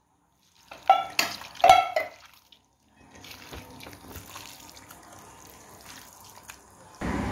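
A little water poured into a steel bowl of spiced raw chicken, with sharp ringing clinks about a second in, then hands squishing and mixing the wet marinade through the chicken pieces.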